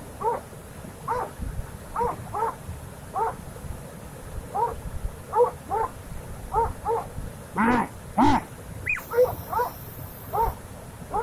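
An animal giving repeated short, high, yelping cries, roughly one or two a second, with two louder, harsher cries about eight seconds in.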